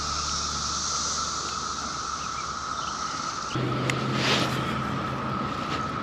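Outdoor ambience on open water: a steady hiss of wind on the microphone with a steady high whine underneath. About three and a half seconds in the background changes abruptly, and a short whoosh follows.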